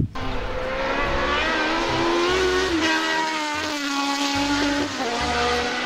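Engine of a Marlboro McLaren Formula One car, a Cosworth DFV V8, running at high revs as the car drives along the track. The pitch drops about halfway through and shifts again near the end.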